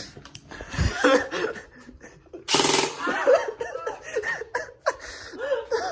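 An airsoft gun fired in one short, rapid burst of clicking shots about two and a half seconds in, with laughing voices around it and a dull thump about a second in.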